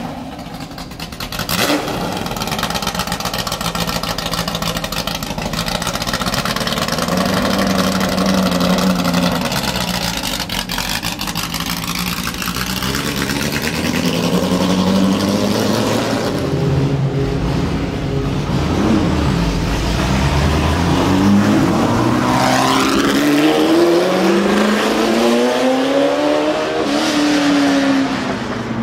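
Ford GT40 Mk II's 7-litre V8 running at low revs, then pulling away with the revs climbing and dropping several times through the gears.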